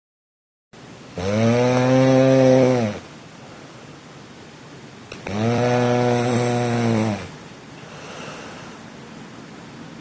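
A person snoring in sleep: two long, loud snores about four seconds apart, each a low buzzing drone lasting about two seconds, with quieter breathing between them.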